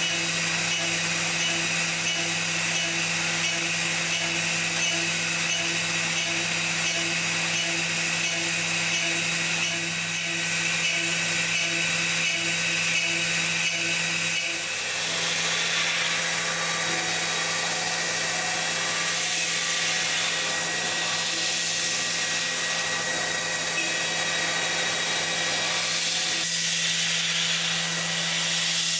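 Doosan PUMA TT1800 CNC lathe machining: a steady machine hum and whine with cutting hiss. The sound dips briefly and changes about halfway through.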